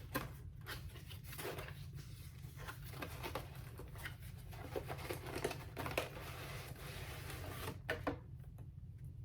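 A cardboard product box being opened and its packaging handled: scattered small clicks, taps, scrapes and paper rustling, over a steady low hum.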